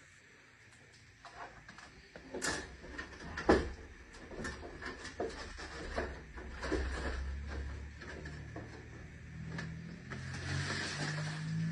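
Irregular clicks, knocks and clatter of hands and tools handling parts during a storage heater installation, with one sharp knock about three and a half seconds in. A low steady hum comes in during the second half.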